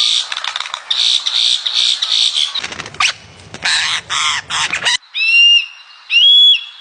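Animal calls: harsh, raspy chattering screeches for about five seconds, then two short, clear whistled calls about a second apart.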